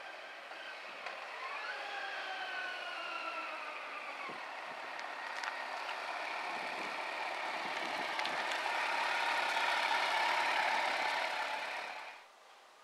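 Kawasaki Versys 1000 LT's inline-four engine as the motorcycle rides toward the microphone: the engine pitch rises quickly about a second in, falls slowly, then holds a steady note that grows louder as the bike approaches. The sound cuts off suddenly near the end.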